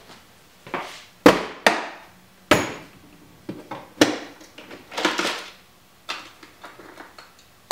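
Clear plastic storage box handled on a wooden workbench: knocks as it is set down, clacks as its latch is worked and the lid lifted, then small rattles from inside. About ten sharp knocks and clacks in all, the loudest two within the first three seconds.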